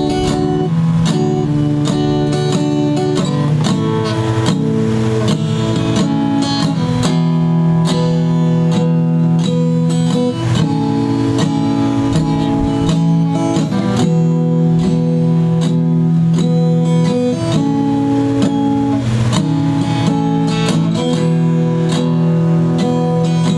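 Guitar music: chords strummed steadily on what sounds like an acoustic guitar.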